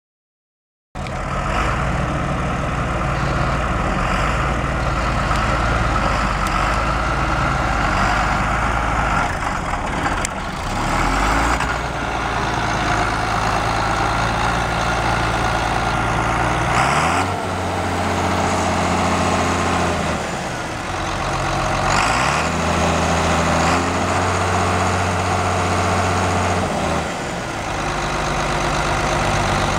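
1980 John Deere 4840's turbocharged six-cylinder diesel engine running at idle, revved up twice and held higher for a few seconds each time before dropping back to idle. The engine has a known exhaust leak.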